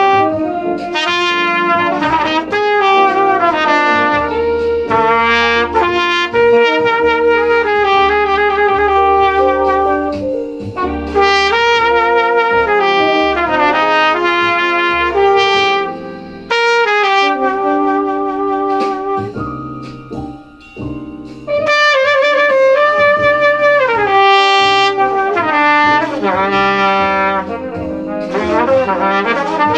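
Trumpet playing a jazz improvisation: a steady flow of changing notes with quick rising and falling runs. It drops back briefly in the middle, with one longer held note.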